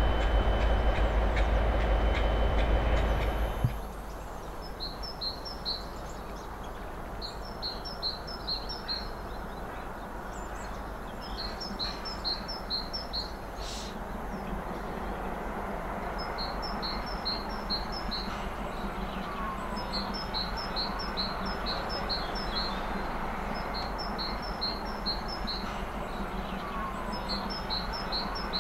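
A train running on the tracks, loud and steady, cuts off abruptly about four seconds in. It gives way to a low, steady outdoor background in which a songbird repeats a short, high phrase of about six quick notes every few seconds.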